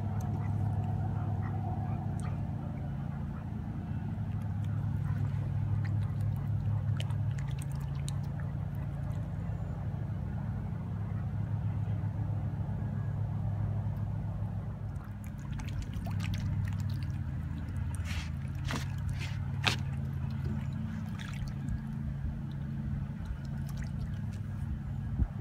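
A steady low motor hum, like an engine idling. Between about 15 and 21 seconds in come several short clicks and light splashes at the water's surface.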